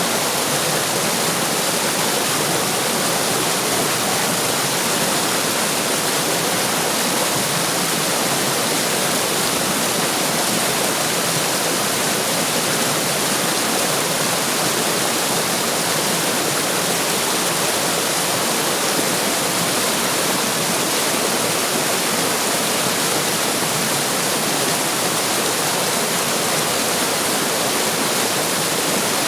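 Running water rushing and splashing steadily over rocks, a continuous even hiss with no change or break.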